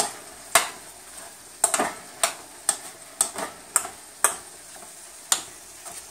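A wooden spoon working ground meat moistened with wine in a ceramic bowl: irregular sharp clicks and taps of the spoon against the bowl, about two a second, with a pause near the end.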